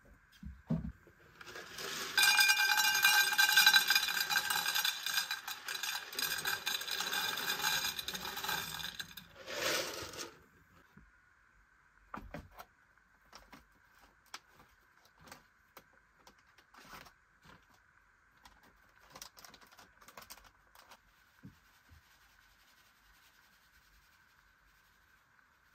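Metal clattering and scraping with a ringing tone for several seconds, then a short rustle and a few light clicks.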